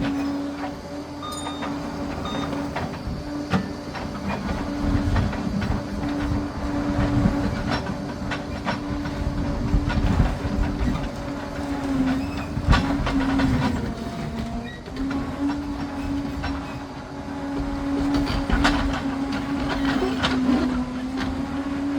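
Liebherr PR 746 crawler dozer working: a steady engine and drive whine that dips briefly in pitch a few times, with the clanking of steel tracks and scattered knocks.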